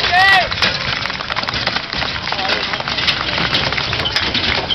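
Crowd clapping, a dense crackle of many hands, with a short rising-and-falling call near the start.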